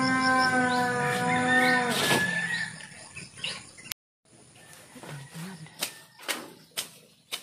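A cow mooing: one long, steady, loud call that ends about two seconds in. After a short break, a bolo knife hacks through grass in about four sharp strokes, half a second apart.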